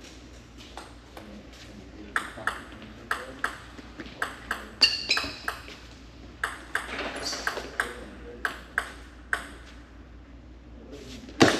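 Table tennis ball clicking against the table and paddles in quick series, with a brief high squeak about five seconds in.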